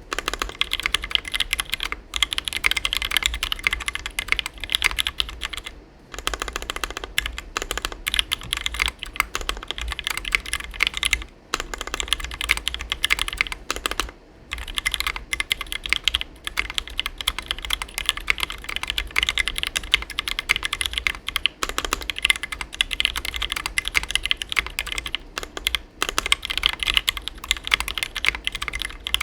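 Continuous fast typing on a custom 60% mechanical keyboard with lubed and filmed Gateron Black Ink linear switches on a brass plate and EPBT doubleshot keycaps, with a few brief pauses between bursts.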